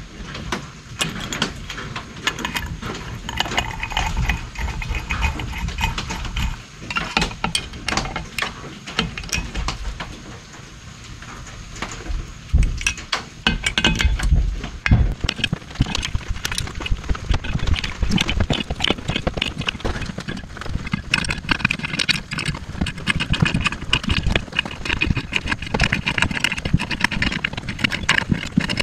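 Irregular metallic clinks, clanks and knocks of hand tools and loose parts as a two-stroke personal watercraft engine is taken apart. The clatter thickens into rapid clicking in the last few seconds.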